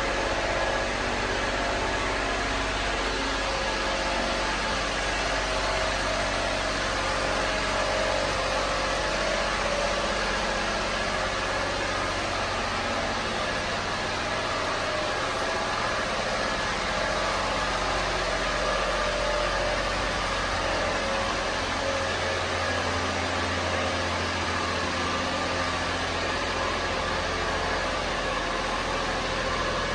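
1998 Honda Acty kei truck's small three-cylinder engine idling steadily, under an even hiss.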